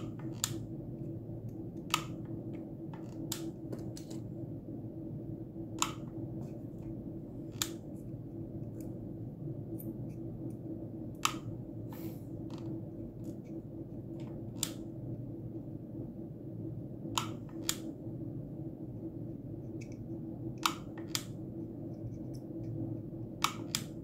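Small sharp clicks and taps at irregular moments, a second or several apart, as a circuit board and its parts are handled and fitted by hand, over a steady low hum.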